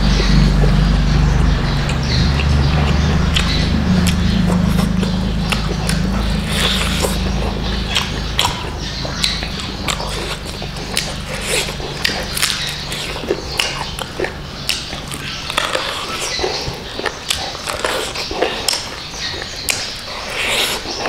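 Close-up eating sounds: a person chewing rice and chicken with wet mouth clicks and lip smacks, many short irregular clicks throughout. A low steady hum sits underneath for the first several seconds and fades out.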